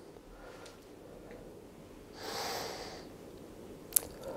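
Quiet room with a single breath-like exhale lasting just under a second a little past the middle, and one sharp click near the end.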